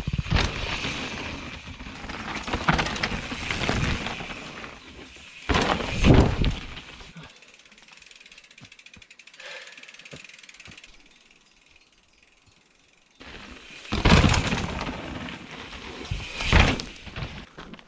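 Mountain bike being ridden over a dirt trail: tyres on the ground, chain and frame rattling over bumps, and the rear hub's freewheel pawls ratcheting while coasting. Rough loud stretches come at the start, about six seconds in and twice near the end, with a quieter stretch in the middle.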